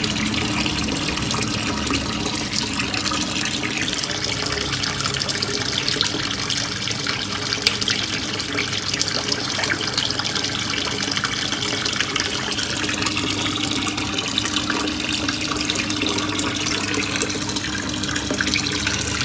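Water from a submersible pump's outlet gushing and splashing into a turtle tub, a steady rush of splashing water.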